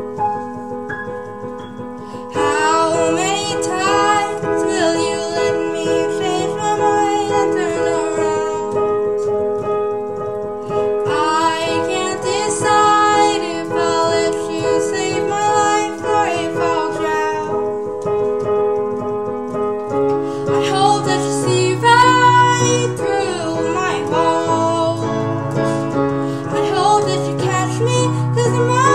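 Young woman singing a slow pop ballad while accompanying herself on a digital piano. The piano plays alone at first; the voice comes in about two seconds in and pauses twice between phrases while the piano carries on, and deeper bass notes join in the second half.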